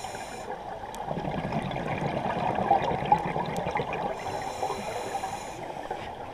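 Scuba breathing heard underwater: the bubbling, crackling exhaust of an exhale through a regulator, then a hissing inhale about four seconds in that lasts over a second before the bubbling resumes.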